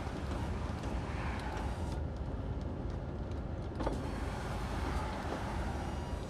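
A lorry's diesel engine running steadily, heard from inside the cab, with a faint click about four seconds in.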